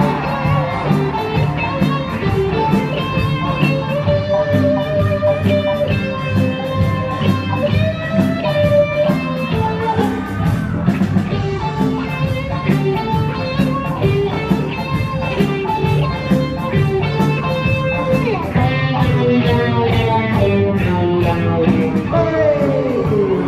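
Live band music led by electric guitar over bass and drums, with the guitar's notes bending and sliding.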